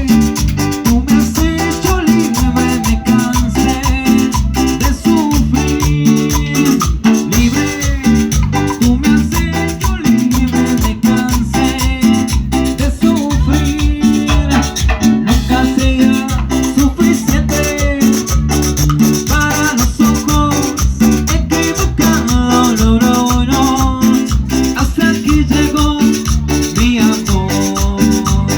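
Latin dance music with a steady beat, strong bass and fast shaken percussion like maracas.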